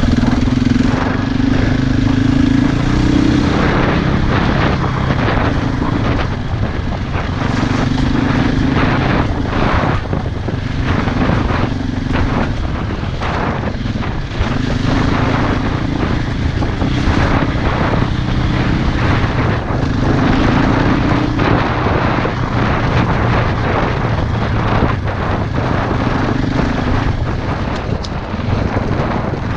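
Single-cylinder four-stroke dirt bike engine under way off-road, its revs rising and dropping every second or two, with wind rush and knocks from the rough ground throughout.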